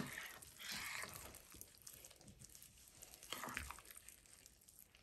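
Spoon stirring and mashing a thick, wet roasted-eggplant dip in a ceramic bowl: quiet squelching and scraping in two brief spells, with a sharp tap at the very start.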